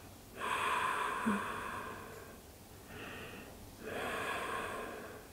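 A woman's deep breaths, heard close up: a long breath about half a second in, a short one around three seconds, then another long breath about four seconds in.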